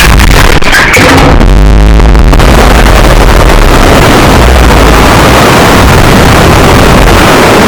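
Alien pain shriek horror sound effect: a harsh, heavily distorted noise at full loudness with no clear pitch. The upper part thins out for about a second near the start.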